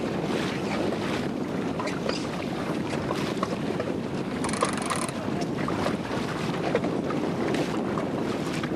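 Wind buffeting the microphone over water splashing and lapping against the hull of a small sailing boat under way: a steady rushing noise with small irregular splashes.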